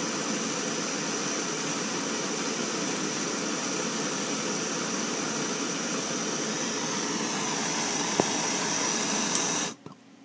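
Handheld gas torch flame burning with a steady hiss, shut off suddenly near the end.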